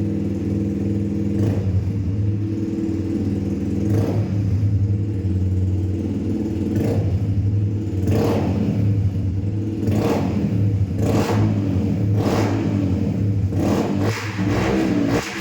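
Yamaha R15 V2's single-cylinder engine idling through an open Akrapovic full-system exhaust with the dB killer removed, blipped about nine times, each a short rise in revs. The exhaust is very loud.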